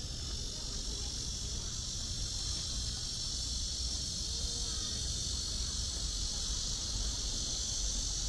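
A chorus of cicadas: an unbroken, high-pitched drone, over a low rumble.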